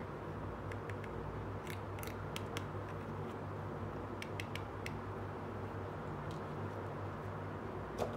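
Light, scattered clicks of small plastic toy pieces knocking together as a toy tool stand is handled, over a steady low hum.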